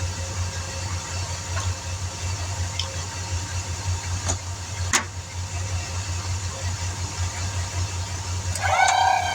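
Air compressor running steadily with a fast low pulsing hum, inflating a newly mounted tire. Two sharp clicks come in the middle, and a steady pitched tone with overtones starts near the end.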